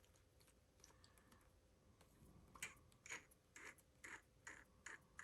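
Faint, quick light clicks and taps, about eight of them starting a little past halfway, from small hand work on a fountain pen being cleaned.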